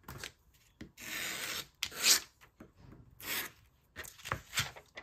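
Magazine pages being handled and turned, paper rubbing and sliding in several swishes, the loudest about two seconds in.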